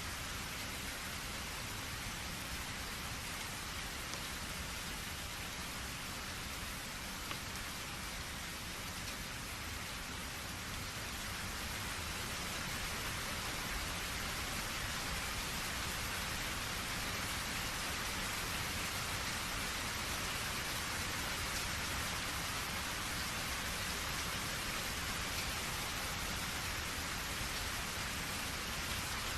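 Steady rain falling, an even hiss of drops on surfaces that grows a little heavier about halfway through.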